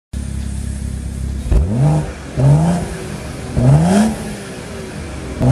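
BMW M140i's 3.0-litre turbocharged straight-six heard at the exhaust tip, idling and then blipped three times, each rev climbing quickly in pitch and dropping back to idle; a fourth blip starts right at the end.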